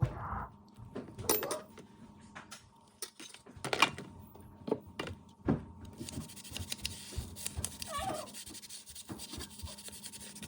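Scattered light knocks and clicks with some rubbing, from hands handling and scrubbing dishwasher parts during cleaning.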